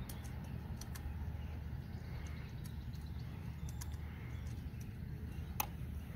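Steady low outdoor background rumble with a few faint small clicks scattered through it and one sharper click about five and a half seconds in.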